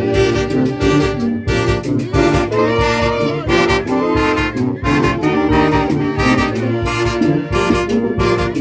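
Live band of saxophones and brass playing a tune in held, overlapping notes over a steady, even drum beat.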